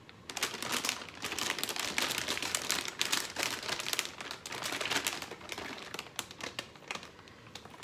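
Plastic food pouch crinkling and crackling as hands dig inside it to pull out pieces of chicken; it starts about a quarter second in and eases off near the end.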